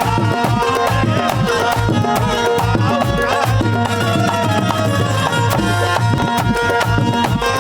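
Indian folk-style music with fast, busy hand-drum percussion under melodic instruments.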